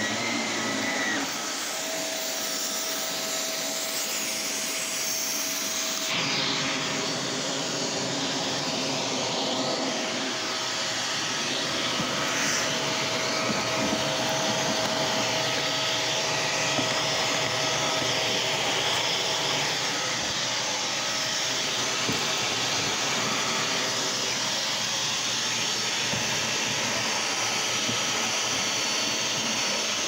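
Upright vacuum cleaner running steadily, with a faint whine over its even noise.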